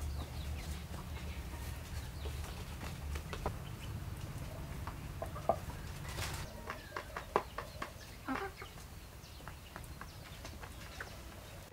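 A wok of water boiling with a low steady rumble that fades after about six seconds, then a few short clicks, with a chicken clucking now and then.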